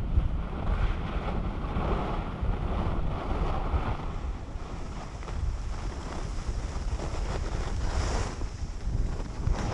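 Wind buffeting a GoPro Fusion's microphones while skiing downhill, a steady low rumble, with the hiss of skis sliding over groomed snow. A brief brighter hiss near the end.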